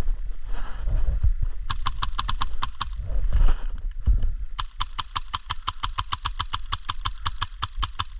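Krytac LMG airsoft replica, fitted with a Heretic Labs Inferno, firing on full auto at about nine to ten shots a second. A short burst comes a couple of seconds in, then a longer unbroken burst of about three and a half seconds near the end.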